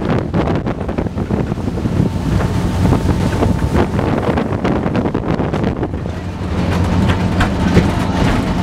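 Speedboat engine running steadily at speed, with heavy wind buffeting the microphone.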